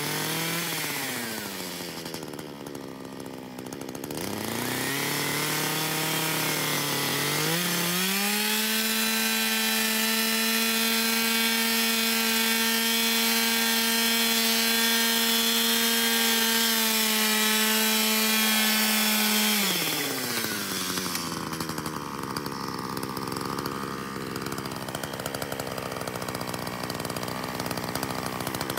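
Shindaiwa two-stroke chainsaw ripping lengthwise through a log. The engine revs up and sags twice in the first several seconds, then runs steadily at full throttle for about twelve seconds. Past the middle it drops back to a lower, uneven speed as the cut frees the slab.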